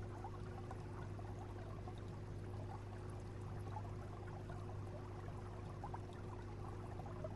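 Aquarium water trickling and bubbling, a fine continuous crackle, over a steady low hum.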